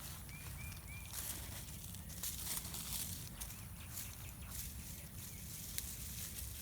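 Irregular scraping, crunching and rustling of dry soil and potato vines being dug and handled with a garden fork.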